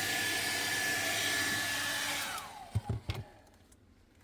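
A hot-air blower runs steadily with a whine, melting the ice that has built up in the fridge because its defrost heater is faulty. About two seconds in it is switched off and the motor spins down with a falling whine, followed by a few knocks.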